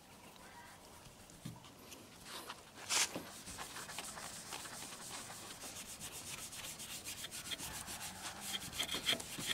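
Yellow foam applicator pad rubbing scratch-remover compound into a car door's paint in quick back-and-forth strokes, starting about three seconds in.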